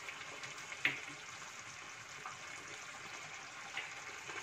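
Tamarind pulp cooking down in oil in a pan, with a faint steady sizzle and occasional small pops. The sharpest pop comes about a second in.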